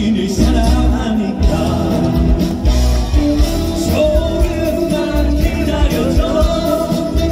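A man singing into a microphone over live band accompaniment, with a steady pulsing beat underneath.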